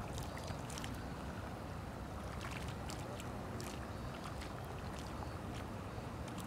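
Small sea waves lapping and splashing softly, over a steady low rumble, with scattered faint ticks of water.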